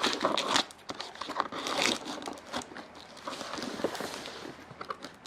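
A cardboard parcel being opened by hand: packing tape tearing and cardboard and packing material crinkling and crackling in irregular bursts, with a longer tearing hiss near the middle.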